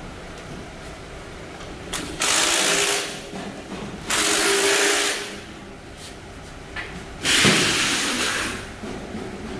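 A power tool running in three short bursts of about a second each, the last one slightly longer, with a steady whine under the noise.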